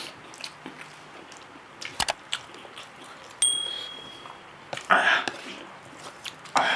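Subscribe-button pop-up sound effect: a pair of sharp clicks about two seconds in, then a short bright ding about a second later. Two louder breathy hisses follow, about five seconds in and near the end.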